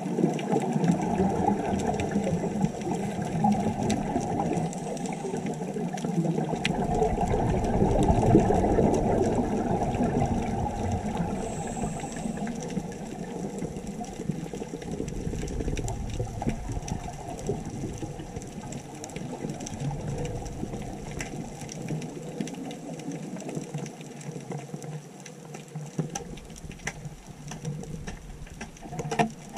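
Underwater rushing and bubbling heard through a camera's underwater housing, a steady low churning noise that swells around eight seconds in and then eases off.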